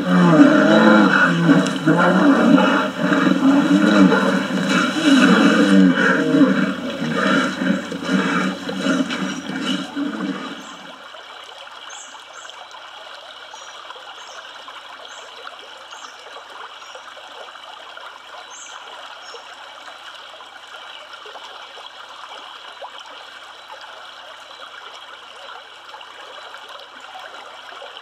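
Grizzly bears roaring and growling loudly as they fight in a river, cutting off suddenly about ten seconds in. After that only the steady rush of flowing river water remains, with a few faint high chirps.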